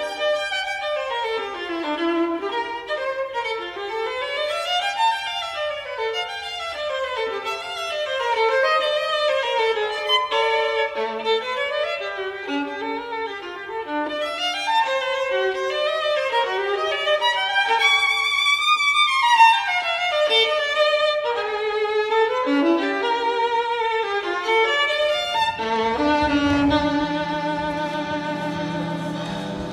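Solo violin playing fast arpeggiated runs that sweep rapidly up and down the instrument. About 26 seconds in, low sustained tones join underneath.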